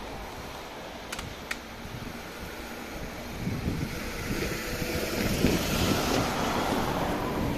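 Vehicle running noise that swells to its loudest about three quarters of the way through, with two sharp clicks just after a second in and wind on the microphone.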